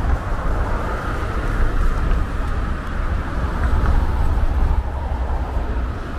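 Steady city road traffic: cars passing on a busy street, an even wash of tyre and engine noise with a strong low rumble underneath.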